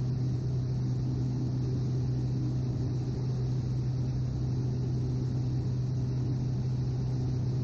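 Cockpit noise of a Cessna 208 Grand Caravan EX in cruise flight: the Pratt & Whitney PT6A-140 turboprop and propeller make a steady drone with a strong low hum. It is heard through the aircraft's intercom audio feed.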